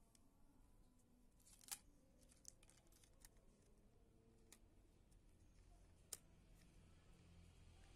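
Near silence broken by small, sharp clicks and taps of plastic and metal camera parts being handled and fitted together as a compact camera's lens unit is seated on its chassis; the loudest click comes about two seconds in and another about six seconds in.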